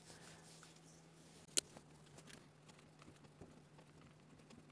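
Near silence: faint room tone with a low steady hum and one sharp click about a second and a half in.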